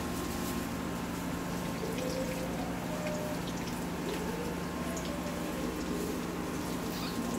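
Breaded bread pockets frying in shallow oil in a nonstick pan: a steady sizzle with scattered small pops and crackles, over the induction cooker's steady hum.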